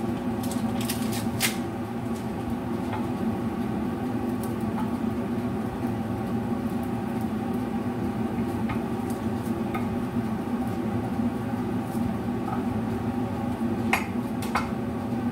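Food cooking in a covered wok on a gas hob: a steady hum and hiss with scattered small clicks and pops from the pan, a few in the first seconds and a couple more near the end.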